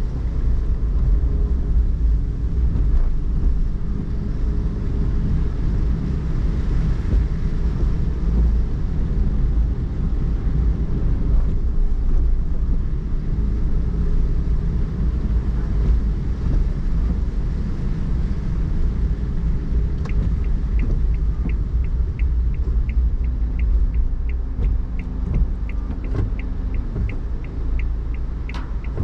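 Steady low rumble of a car's engine and tyres on a rain-wet road, heard inside the cabin. About two-thirds of the way through, a turn-signal indicator starts ticking, two to three clicks a second.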